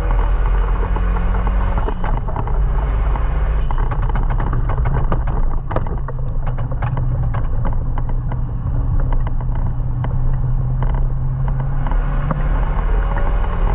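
Renault Mégane RS 225's turbocharged 2.0-litre four-cylinder engine driving in the wet. The engine note climbs early, holds lower and steadier through the middle, then climbs again near the end. A run of sharp clicks and knocks comes about halfway through.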